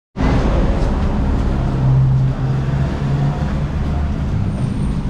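Street traffic: a motor vehicle's engine running close by, a steady low rumble that swells for a second or two about two seconds in.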